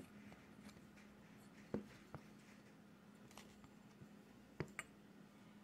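Near silence with a faint steady hum, broken by a few light clicks and taps as a small metal frame bracket and parts are picked up and handled, two of them close together near the end.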